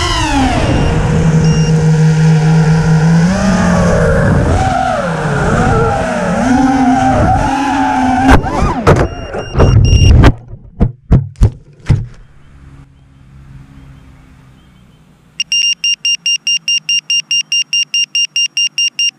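A small flying drone's motors whining, the pitch sliding up and down with the throttle, then a run of loud sharp clattering strikes as it crashes through branches and the motors stop. About three seconds later, with the drone on the ground, its high alarm buzzer starts beeping rapidly and evenly, about six beeps a second.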